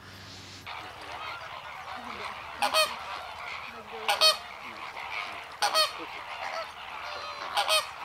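A flock of greater flamingos calling: a steady chatter of many birds, with four loud honks standing out over it at intervals of about a second and a half from a couple of seconds in.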